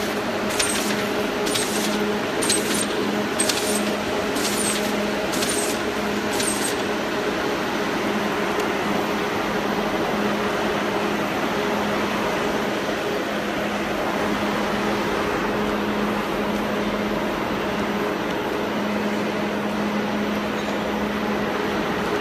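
Pouch-bag sticker labelling machine running with a steady mechanical hum and a constant low tone. For the first seven seconds or so it gives a sharp click roughly once a second.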